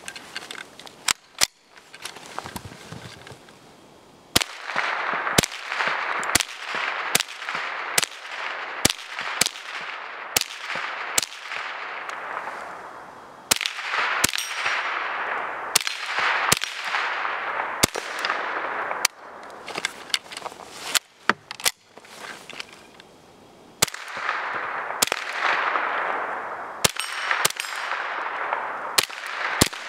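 Rifle shots fired one at a time at an uneven pace, several dozen in all. A hissing rush swells and fades under some stretches of the shooting.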